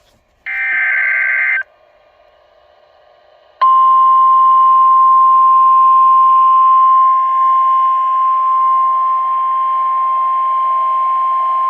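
Weather radio alert signal received over hiss: a short warbling burst of digital data tones, the tail of the SAME alert header, then after a pause of about two seconds a single steady high tone, NOAA Weather Radio's warning alarm tone. It announces a severe thunderstorm warning.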